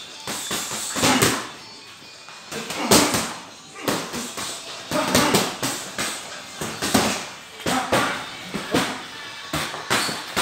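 Boxing sparring: gloved punches land in irregular flurries of quick smacks, mixed with short, sharp hissing breaths from the boxers.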